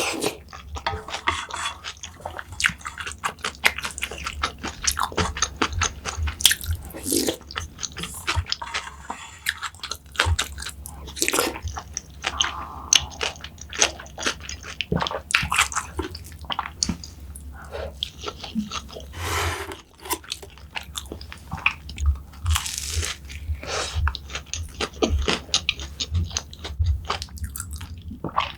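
A person chewing and crunching food close to the microphone, with many short, crisp bites in an irregular rhythm.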